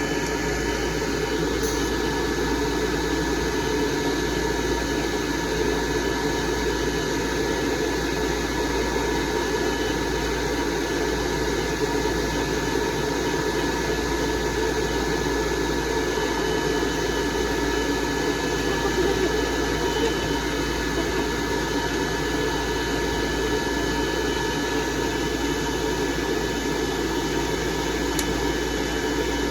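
Pet blow dryer running steadily: a constant rush of blown air with a thin, steady high whine.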